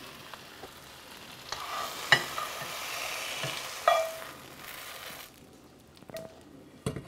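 Diced chicken in honey teriyaki sauce sizzling in a stainless frying pan while a utensil stirs it, clicking against the metal now and then. The sizzle fades after about five seconds, and a few light knocks follow as the chicken is tipped onto a plate.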